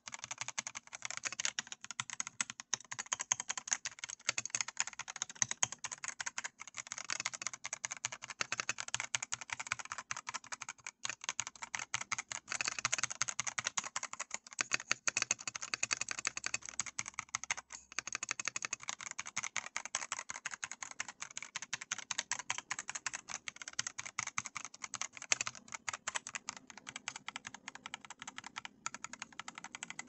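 Fast, continuous typing on an Epomaker TH80-X 75% gasket-mounted mechanical keyboard: a dense run of key clicks and clacks, broken by brief pauses about eleven and eighteen seconds in.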